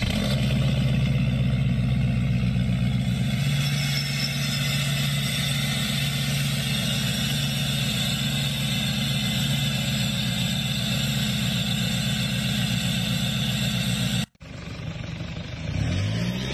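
Lifted Ford Super Duty pickup's engine running loud and steady at a constant pitch while smoke pours from under the truck. After a cut near the end, a second pickup's engine revs up twice.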